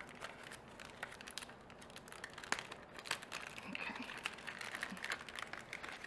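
Plastic packaging crinkling and rustling as small paper craft pieces are worked out of it, with many short sharp crackles.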